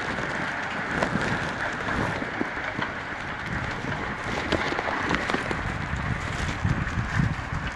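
Thunderstorm weather noise: a steady wash of rain and wind on the microphone, with many small ticks scattered through it and no clear thunderclap.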